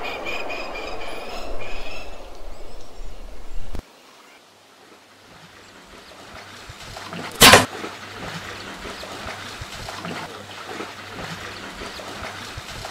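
Water splashing and sloshing as crocodiles thrash in shallow water, with one sharp crack about seven and a half seconds in. Before that, after an abrupt cut, the tail of a rifle shot's echo dies away under short high chirps.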